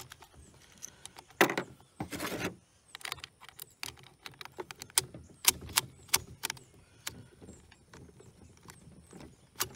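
Metal clicks and clacks of .30-06 cartridges being thumbed from 5-round stripper clips into a Johnson Model 1941 rifle's rotary magazine. A longer rasping noise comes about two seconds in, then a run of separate sharp clicks.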